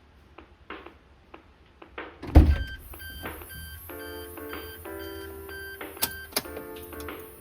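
A few soft scuffing noises, a loud thump a little over two seconds in, then music with plucked notes starting about four seconds in over a steady high hiss.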